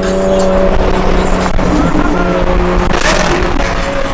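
Car engine running steadily at freeway speed, heard from inside the cabin, its drone shifting pitch partway through. A short loud rush of noise comes about three seconds in.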